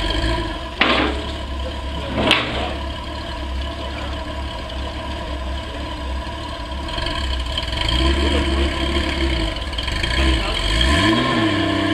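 Honda Goldwing GL1500 flat-six engine idling steadily, with two sharp knocks about one and two seconds in. Near the end the engine pitch rises and falls a few times.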